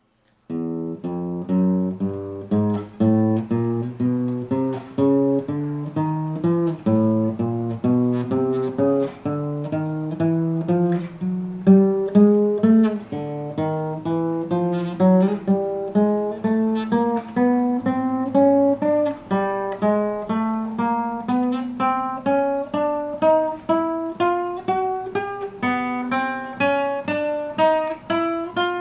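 Acoustic guitar (violão) plucked one note at a time in quick, even succession, climbing steadily in pitch from the low strings upward: the notes of each fret played in turn, with no voice.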